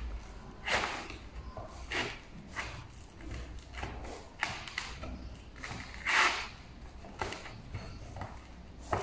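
Hands kneading and squeezing freshly mixed homemade play dough on a tray: irregular squelches and soft thuds, the loudest a little after six seconds.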